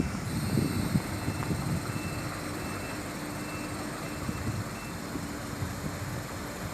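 Sumitomo SH350 hydraulic excavator running steadily, its engine giving a held hum with a faint high whine above it.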